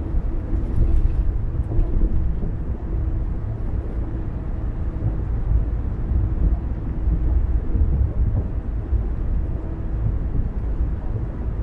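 A car driving along a road: a steady low rumble of tyres and engine, with a faint steady hum.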